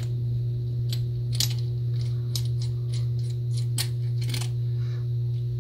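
Light metallic clicks and taps of a Great Lakes Holiday 98 spincast reel's parts knocking together as its foot is fitted back on, a dozen or so scattered ticks over a steady low hum.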